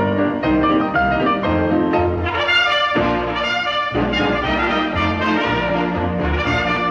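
Lively orchestral music with brass, short quick notes over a pulsing bass line.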